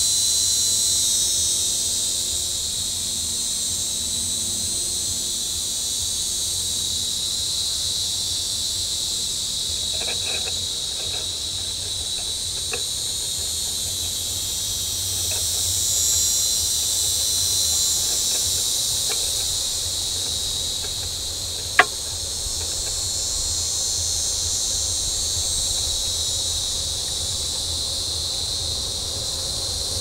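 Dense insect chorus buzzing high and steady, with a few faint light taps near the middle and a single sharp knock about three-quarters of the way through.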